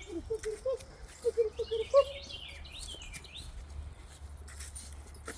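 Chickens clucking in quick runs of short notes during the first two seconds, with a songbird chirping and trilling above them.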